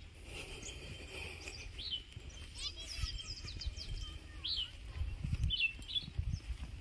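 Small birds chirping: short, high chirps scattered every second or so, with a quick run of several about halfway through, over a low rumble.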